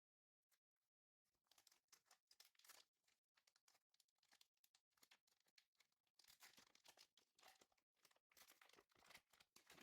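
Very faint, irregular crinkling and tearing of a foil trading-card pack wrapper being opened and handled.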